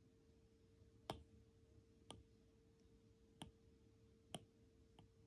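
A stylus tip tapping on a tablet's glass screen five times, faint and roughly a second apart, over a faint steady hum.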